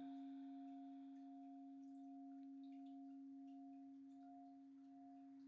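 Crystal singing bowl ringing on with one steady low tone and a fainter higher overtone, faint and slowly fading.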